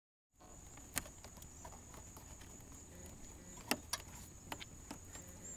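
Faint scattered clicks and taps, about five, the sharpest about a second in and near four seconds in: a nut driver with a 5/16-inch socket and hands working the worm-drive hose clamp on a rubber air intake hose, over a faint steady high whine.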